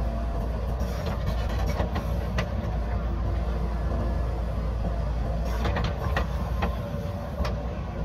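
JCB backhoe loader's diesel engine running steadily as the backhoe arm works, a heavy low rumble. Scattered short knocks and clicks come through about a second in and again in the second half.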